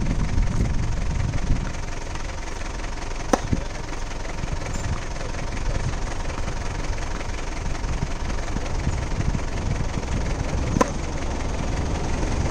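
Two sharp knocks of a tennis ball, about three seconds in and near the end, over a steady low rumble.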